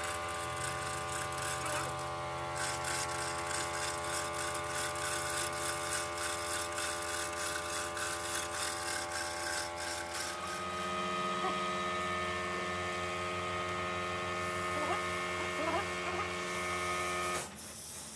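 Electric chain hoist motor running with a steady whine while it lifts a dozer radiator on chains. The pitch shifts about ten seconds in, and the sound cuts off sharply near the end.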